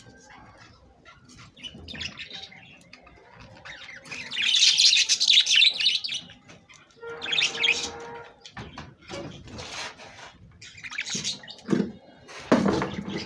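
Several budgerigars chirping and chattering in irregular bursts with short pauses between; the loudest, busiest burst comes about four to six seconds in.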